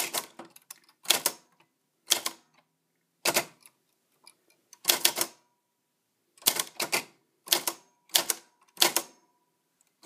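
Manual typewriter being typed on slowly and unevenly, one key at a time: sharp separate clacks of the typebars striking, with short pauses between small groups of strokes.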